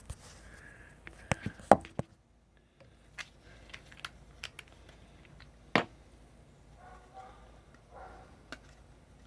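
Scattered handling clicks and knocks as things are picked up and set down. The loudest are a quick cluster of knocks about two seconds in and one sharp knock near six seconds.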